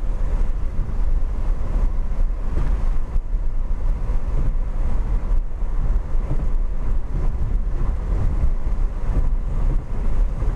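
Road and wind noise inside a moving car: a dense, steady low rumble with wind buffeting the microphone.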